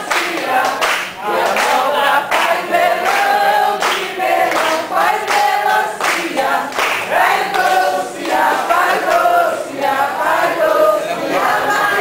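A group of voices singing together without instruments, with hand clapping along.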